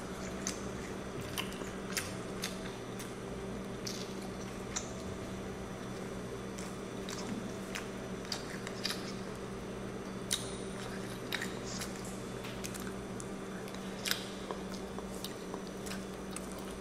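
A child biting and chewing corn on the cob: scattered short wet clicks and crunches, over a steady low hum.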